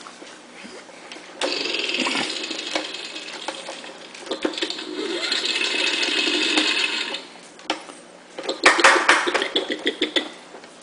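Toy lawn mower's electronic motor sound effect, played twice as its button is pressed, each time a steady buzzing run of about two to three seconds. Near the end comes a quick series of plastic clicks and rattles from the toy.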